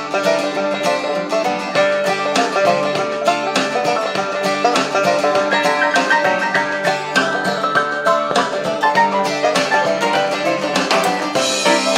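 Instrumental music with plucked strings playing through the Sony ICF-2010's built-in speaker. The radio is receiving it on FM 92.9 MHz from a small transmitter fed by an MP3 player. The sound is thin, with almost no bass.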